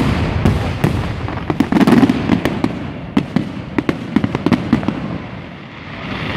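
Aerial firework shells bursting in quick succession: a dense rumble of booms packed with many sharp cracks, thinning out and fading about five seconds in.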